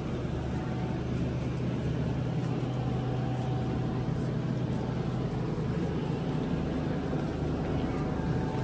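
A shopping cart being pushed and rolling over a supermarket floor, over a steady low hum from the store's refrigerated cases.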